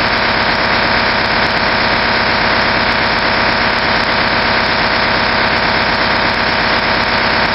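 Raw digital data transmission picked up on a ham radio band and heard through a scanner receiver: a steady, rough drone, like a truck's diesel engine idling in a cave. It works much like an old dial-up modem's tones.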